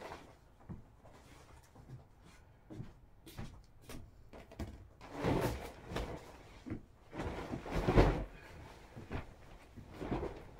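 Bedding being handled as a bed is made: a duvet and pillows swishing and rustling as they are shaken out and dropped. Louder swishes come about halfway through, and the loudest, a soft thump, comes about three-quarters of the way in.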